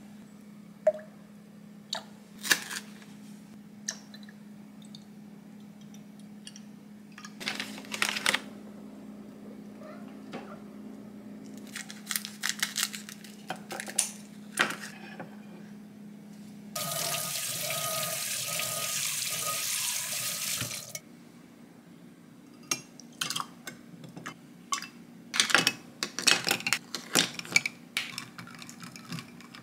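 Drink-making sounds: liquid pouring into a glass, with scattered clinks and taps of glassware, ice and a plastic pouch. About 17 seconds in, a loud steady hiss with a faint hum runs for about four seconds, then the clinks and taps resume.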